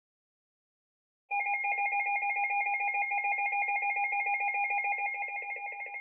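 Weather alert radio's alarm going off: a loud, rapidly pulsing electronic warble that starts suddenly about a second in and runs on. It signals that an incoming warning, here a flood warning, has interrupted the routine broadcast.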